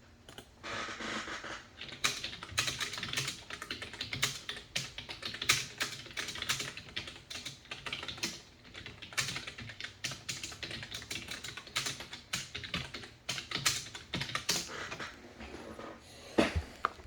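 Typing on a computer keyboard: an irregular, quick run of key clicks, several a second, with brief pauses.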